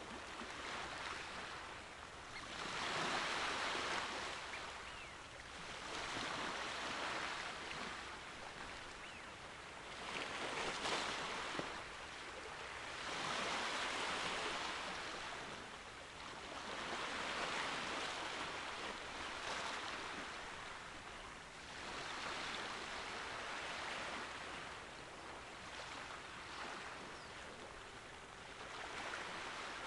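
Sea waves breaking, a rush of surf that swells and fades about every four seconds. No ship's engine stands out.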